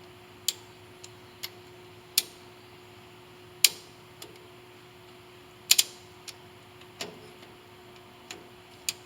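Irregular sharp metal clicks and ticks, about a dozen, from snap-ring pliers working a snap ring out of the gear selector bearing bore in a LeBlond RKL-1960V lathe headstock.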